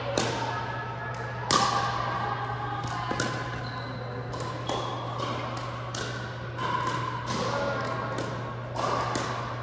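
Pickleball rally: a string of sharp pops as paddles strike the plastic ball and it bounces on the hardwood court, roughly one a second, the loudest about one and a half seconds in. A steady low hum runs underneath.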